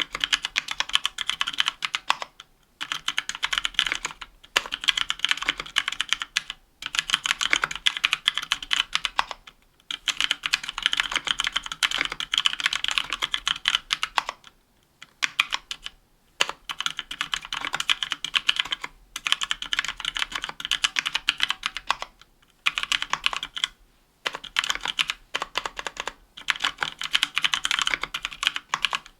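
Typing on a 60% mechanical keyboard with Kailh Pro Purple tactile switches in an aluminum case and plate, under GMK doubleshot keycaps: fast runs of keystroke clacks broken by short pauses every few seconds.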